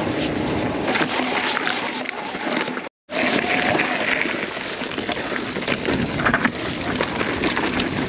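Wind buffeting a riding camera's microphone while a Lapierre eZesty e-mountain bike is ridden, with tyre noise and frequent rattles and knocks over rough ground. The sound cuts out abruptly for a moment about three seconds in.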